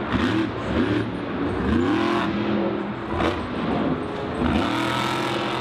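Monster truck's supercharged V8 engine revving up and down repeatedly.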